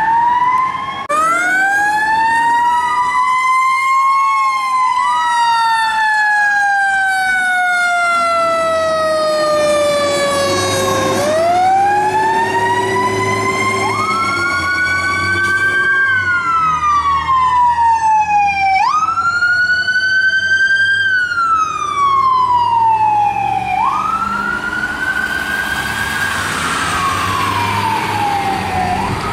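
Emergency vehicle siren wailing loudly: each cycle rises quickly and falls away slowly, about five cycles that get shorter as it goes. A low steady drone runs beneath it through the middle.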